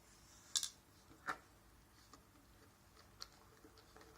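A few small clicks and taps: a sharp high click about half a second in, a duller tap just after a second in, and a faint tick near the three-second mark.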